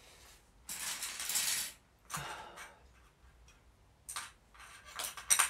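Small hard parts being handled: a rattling clatter about a second in, a shorter one after it, then a few sharp clicks and clinks near the end.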